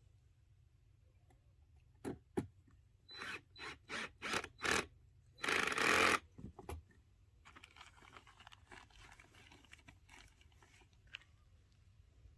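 Shed door latch and lock hardware being worked by hand: two sharp clicks, a quick run of five short scrapes, then one longer, louder scrape, followed by faint scratchy handling noise.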